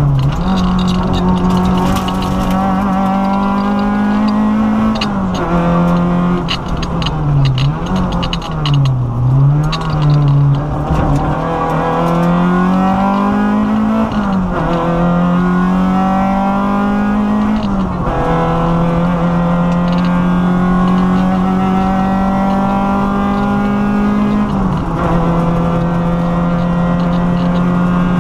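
Peugeot 205 rally car's four-cylinder engine heard from inside the cabin under hard acceleration, its note climbing steadily and dropping sharply at each of several upshifts. For a few seconds early on the pitch swings quickly down and up several times as the driver lifts off and changes down, before pulling hard again.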